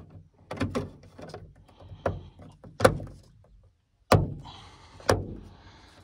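Plastic dome light lens cover of a Honda Civic being pressed onto its housing in the headliner: a series of plastic clicks and knocks, the two sharpest about three and four seconds in, as it snaps into place.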